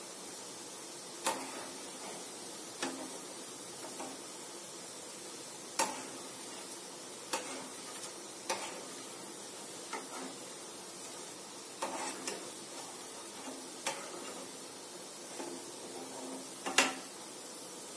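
Chakli deep-frying in hot oil in a pan with a steady sizzle, while a metal perforated skimmer clinks against the pan every second or two as the coils are turned to brown evenly. The loudest clink comes near the end.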